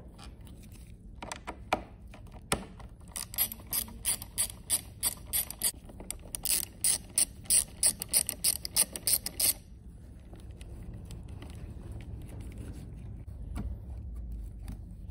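Quarter-inch drive ratchet with a 10 mm long socket working a motorcycle battery terminal bolt, its pawl clicking in quick even strokes, about three a second, that stop about nine and a half seconds in. A few scattered clicks come before the run.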